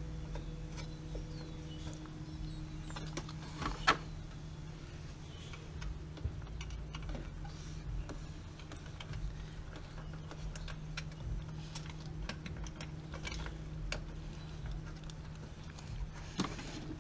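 Scattered small clicks and metallic clinks of hand work on a replacement wastegate actuator at the turbo, with one sharper click about four seconds in and another near the end, over a steady low hum.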